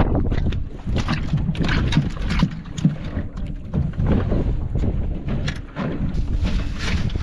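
Wind buffeting the microphone on an open fishing boat at sea, with a constant low rumble and irregular knocks and splashes against the hull.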